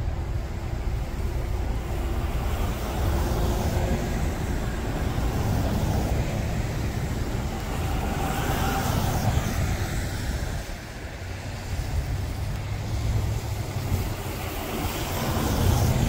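A car drives past on a snow-covered road, its tyres rushing through the snow, loudest about eight to ten seconds in, over a steady low rumble of traffic.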